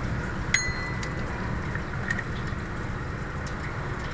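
A metal hand tool clinks once sharply against metal about half a second in and rings briefly, followed by a few faint light taps, over a steady low background hum.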